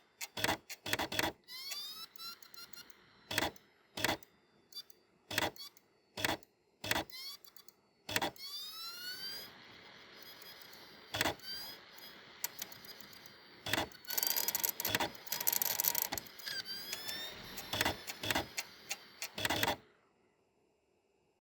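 ASUS ZenDrive U9M external DVD writer reading a disc: the laser sled clicks and knocks repeatedly while the spindle motor spins the disc up again and again with rising whines. A louder whirring rush sounds as the disc runs at speed about two thirds of the way through, and the drive falls quiet near the end.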